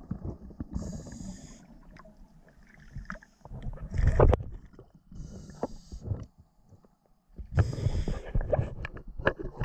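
Scuba diver breathing through a regulator underwater: a short hiss on each inhale, then a loud rumbling gush of exhaled bubbles, repeating every few seconds.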